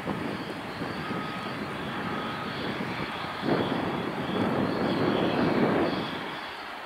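Aircraft engines running on the airport ground: a continuous turbine rush with a faint high whine, swelling louder for a couple of seconds around the middle as a taxiing aircraft passes.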